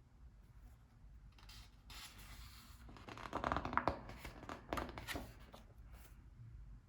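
Book pages being turned by hand: paper rustling and sliding, loudest from about three to five seconds in, with a few sharp crackles.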